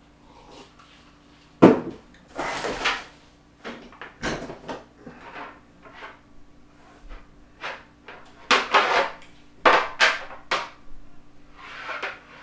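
Wooden skateboard decks being handled: a sharp knock about two seconds in, then irregular clatter, scrapes and knocks.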